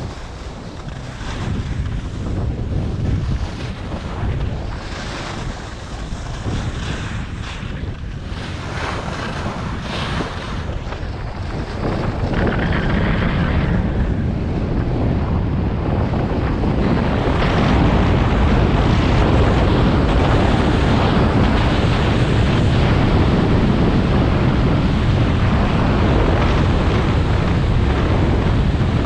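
Wind buffeting a GoPro action camera's microphone, with skis scraping and hissing over packed snow on a fast downhill run. The wind noise grows louder about halfway through as the speed builds, then stays steady and heavy.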